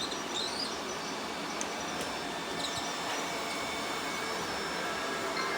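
Several robot vacuums running together: a steady whir of their motors and brushes with faint high whines, and a few short faint electronic chirps.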